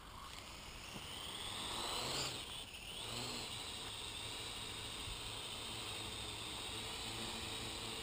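Parrot AR.Drone 2.0 quadcopter's four electric motors and propellers spinning up with a rising whine over the first two seconds, dipping briefly, then running at a steady high whine.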